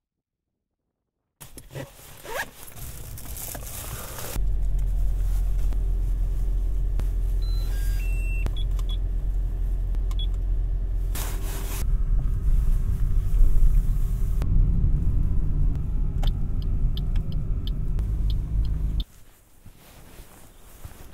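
Toyota car's engine running steadily with a low rumble; it comes on about four seconds in and cuts off near the end. A few short electronic beeps sound about eight seconds in.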